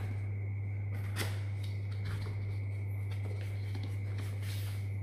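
Cardboard packaging box being handled and opened: a light tap about a second in and a soft papery slide near the end. A steady low hum runs underneath throughout.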